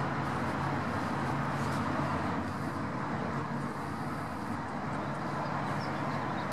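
Steady outdoor traffic noise, with a low hum that comes and goes.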